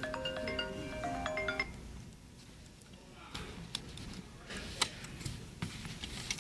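A short electronic melody of beeping notes that step between pitches, lasting under two seconds at the start. Then light clicks and knocks as metal curtain-rail parts are handled and the return pulley is fitted back onto the end of the rail.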